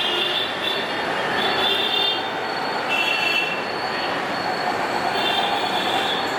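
Train wheels squealing on the rails: a high squeal that comes and goes every second or so over a steady rumble of running rail traffic.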